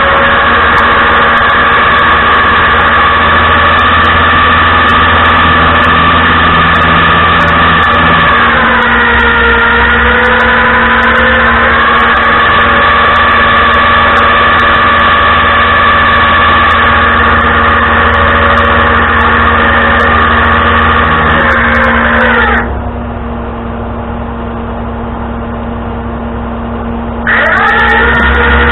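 Tow truck's engine running steadily with a whine. The pitch sags about eight seconds in and recovers a few seconds later. About 22 seconds in it drops sharply and quietens, then rises back about five seconds later.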